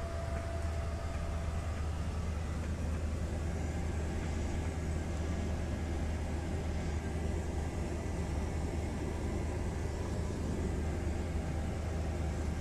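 Steady drone of a small high-wing aircraft's engine and propeller, heard from inside the cabin as the plane taxis.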